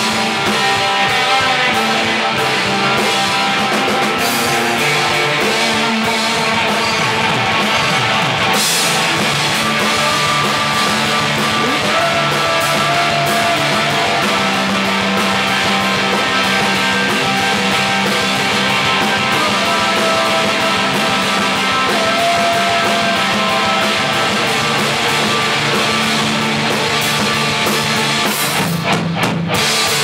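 Rock music with a drum kit and guitars playing.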